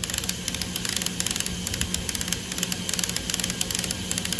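The toy forklift's electric motor and plastic gear train are running with rapid, regular clicking over a steady hum. The clicking comes from a gray 20-tooth gear whose hole is too big, so it loses mesh with the next gear.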